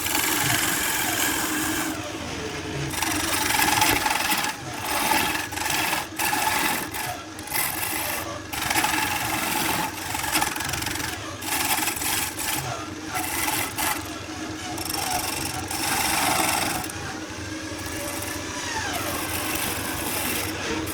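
A tool scraping and rubbing against wood in uneven strokes, over a steady low hum.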